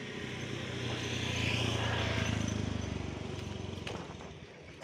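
A motor vehicle drives past, its engine growing louder to a peak about two seconds in and then fading away.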